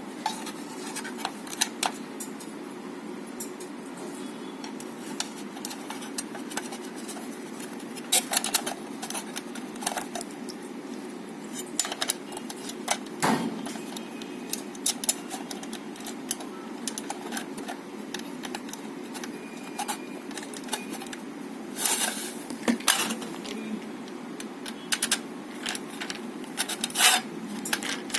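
Small hard parts of a plastic light fitting and its metal hardware being handled during hand assembly. Scattered light clicks and clinks come at irregular moments over a steady background hum, with a cluster of louder clicks a few times.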